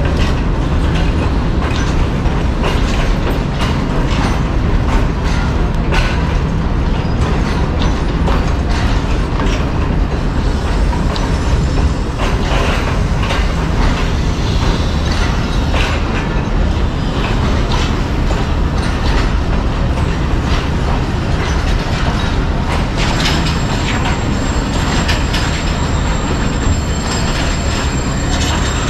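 Passenger coaches of an arriving express train rolling along a station platform: wheels clicking over rail joints over a steady low rumble. A thin high wheel squeal comes in near the end.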